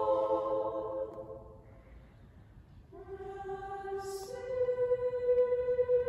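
Small choir of high (treble) voices singing unaccompanied: a held chord dies away in the first two seconds. After a short hush, a new sustained chord enters about three seconds in, with a higher voice joining a moment later and a brief hiss of a sung consonant.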